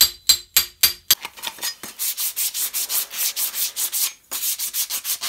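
A planishing hammer tapping a steel knee cop on a ball stake: five light taps, about three a second, each with a metallic ring, in the first second or so. Then a hand rubs back and forth over the steel surface, about four strokes a second, to near the end.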